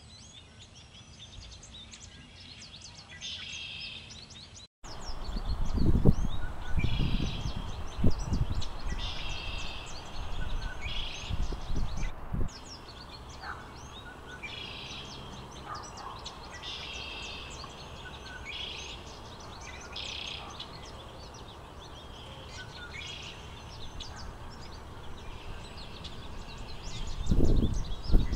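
Songbirds singing and calling in short, repeated high phrases every second or two. Wind buffets the microphone in a low rumble that comes in about five seconds in, gusting strongest a second or two later and again near the end.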